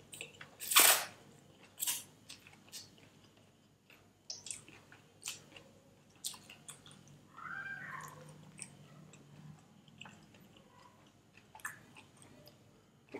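Close-miked mouth sounds of a person eating chow mein noodles: a loud slurp of noodles about a second in, then chewing with wet smacks and clicks scattered through.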